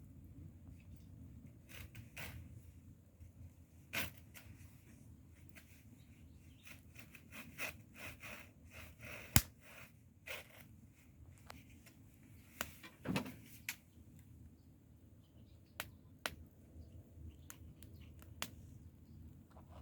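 Wood bonfire crackling, with irregular sharp pops over a low steady rumble; the loudest pop comes about nine seconds in.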